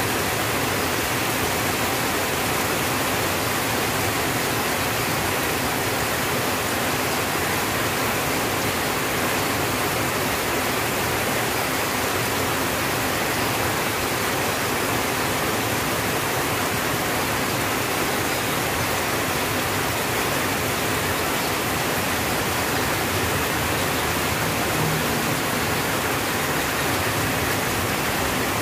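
Steady rain falling on a tin roof, an even unbroken hiss.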